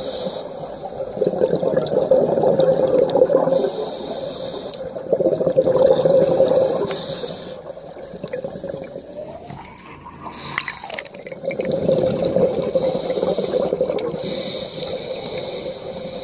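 A scuba diver breathing through a regulator underwater. Each inhale gives a hiss and each exhale a bubbling rush, about three breaths in all. A brief rising tone comes about ten seconds in.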